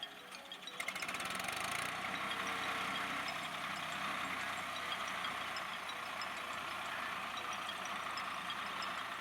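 Swaraj 960 FE tractor's diesel engine idling steadily.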